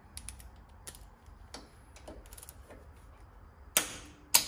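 Ratchet of a click-type torque wrench ticking as it is worked on the cylinder head bolts, then two loud sharp clicks near the end as the wrench breaks over at its set torque.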